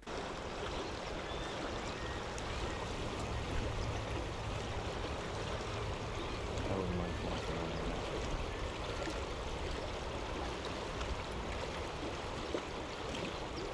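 Steady rush of flowing river water, an even sound throughout.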